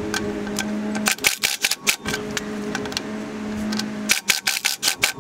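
Milwaukee Fuel cordless impact wrench running driveshaft flange bolts down into the pinion yoke. A steady motor whir alternates twice with stretches of rapid clicking hammering as the bolts snug up.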